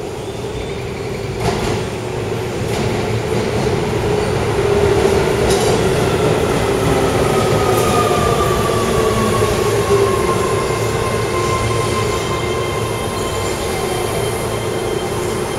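Keio 7000-series electric commuter train pulling into the platform and braking to a stop. Its rumble swells in about two seconds in, and a whine glides steadily down in pitch as the train slows.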